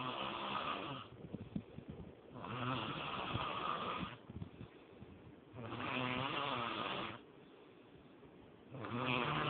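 A person snoring in a steady rhythm, one snore about every three seconds, each lasting about a second and a half, with quieter breathing in between.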